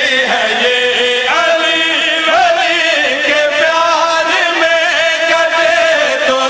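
A man's voice chanting a devotional qasida through a microphone, holding long, wavering notes that glide between pitches without a break.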